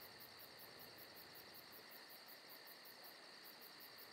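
Near silence: faint steady high-pitched background noise with a fast regular pulse, about five a second.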